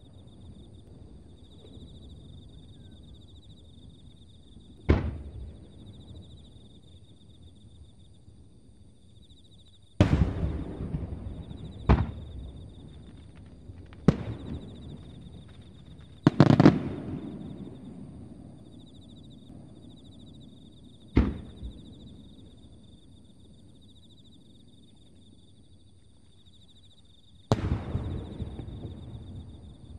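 Fireworks bursting: about seven sharp bangs at irregular intervals, each trailing off in a rolling echo. Insects keep up a steady high chirring underneath.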